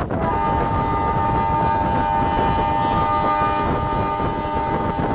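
A vehicle horn held on one steady, multi-note tone, starting just after the beginning, over the rumble and wind noise of a moving bus.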